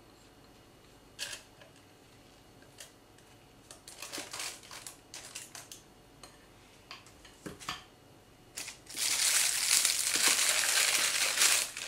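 A few soft scrapes and taps as thick royal icing is scraped from a bowl into a plastic piping bag. About nine seconds in, loud, continuous crinkling of the thin plastic piping bag as it is gathered up around the glass.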